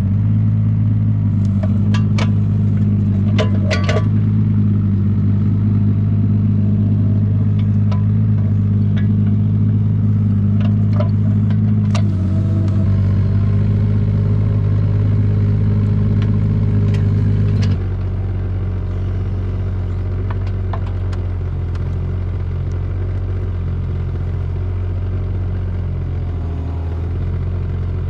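Mini excavator's diesel engine running steadily under work, with a few sharp metallic clanks early on and again around the middle. A little over halfway through, the engine drops to a lower, quieter speed.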